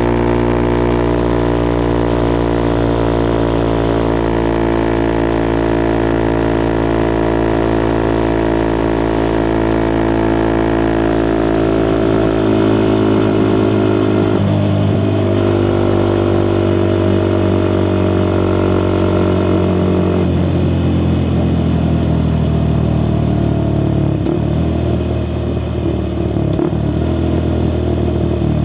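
Suzuki Gixxer SF 250's single-cylinder engine running through a Yoshimura R11 slip-on exhaust while riding along, holding a steady note that shifts in engine speed about halfway through and again about two-thirds of the way in. A few short knocks come near the end.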